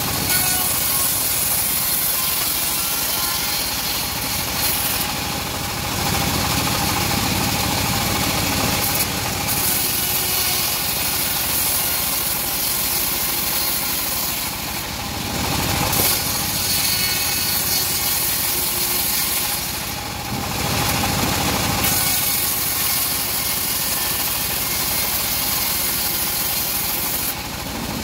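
Homemade engine-driven bandsaw mill running steadily while its blade rips teak planks from a log, the engine drone overlaid by the hiss of the cut. The hiss breaks off briefly about four times as each pass ends and the next board is set up.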